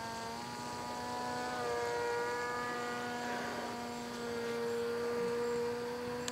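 Electric motor and propeller of a radio-controlled foam model plane whining steadily in flight, the pitch stepping up slightly twice in the first couple of seconds as the throttle changes. A short click right at the end.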